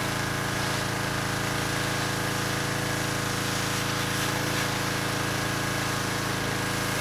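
Gas-engine pressure washer running steadily, its small engine humming under the loud hiss of the high-pressure water jet spraying a wooden shelf unit.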